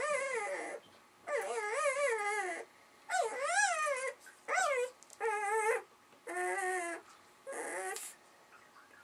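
Newborn puppy whining, a string of about seven high, wavering cries with short gaps between them.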